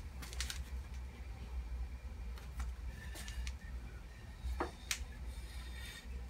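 A few light clicks and taps from handling tools and parts, scattered over a steady low hum.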